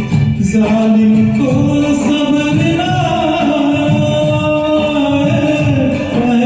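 A man singing a Hindi song over a karaoke backing track, drawing out long held notes.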